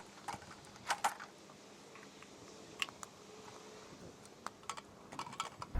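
Sparse light clicks and taps of small hard parts being handled, a pair close together about a second in and a quick run of clicks near the end, over quiet background.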